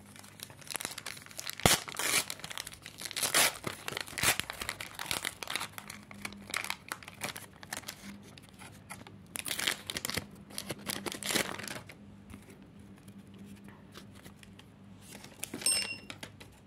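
Panini FIFA 365 Adrenalyn XL trading-card packs being torn open and crinkled by hand: a run of tearing and rustling bursts with a sharp snap about two seconds in, dying down after about twelve seconds to light handling, with one short scrape near the end.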